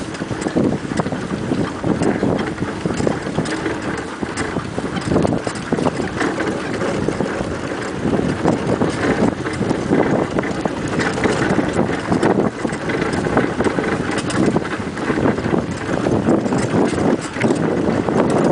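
Dog training cart rolling over a dirt trail behind a running team of Siberian huskies: a steady rumble and rattle with many small clicks, and wind on the microphone.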